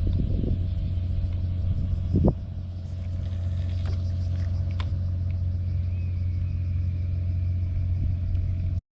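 A steady low rumble, with a brief louder sound about two seconds in.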